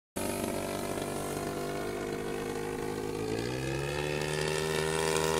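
Gas engine of a 42% scale Solution XX RC biplane in flight, a steady propeller drone that rises in pitch about three seconds in and grows gradually louder.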